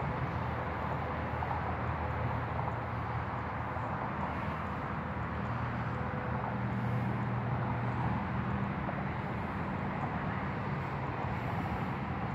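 Steady rumble of distant highway traffic, swelling a little about two-thirds of the way through.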